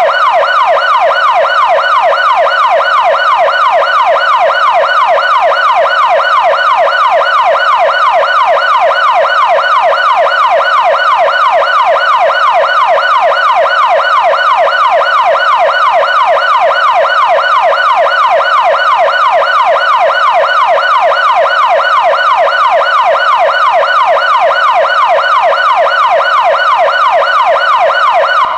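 Police car siren on its yelp setting: a loud, rapid up-and-down wail, about three sweeps a second, repeating evenly without a break.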